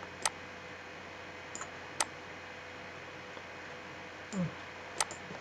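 Computer mouse clicks: three sharp single clicks a second or two apart, with a fainter click between the first two, over a steady low hiss. A short low sound comes just before the last click.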